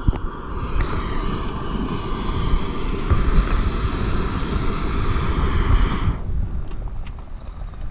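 Strong wind buffeting the microphone, with a steady hiss of several high whistling tones over it that cuts off suddenly about six seconds in.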